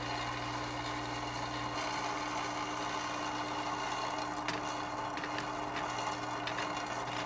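Electric toy train barrel loader running with a steady buzz as its ramp carries small wooden barrels up toward a gondola car. From about halfway through, the barrels give a scatter of light clicks and knocks against each other.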